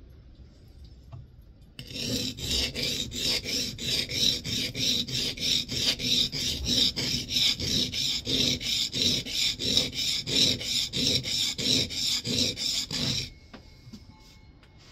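Steel scrub plane iron with a cambered edge rubbed back and forth by hand on a Norton sharpening stone: a gritty scraping in even strokes, about two to three a second, starting about two seconds in and stopping near the end.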